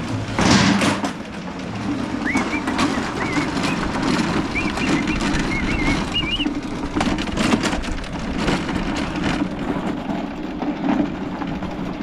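Briggs & Stratton 7.25 Quantum single-cylinder engine on a walk-behind mower, starting with a loud burst about half a second in and then running steadily. It is being test-run after repair for smoking and dying.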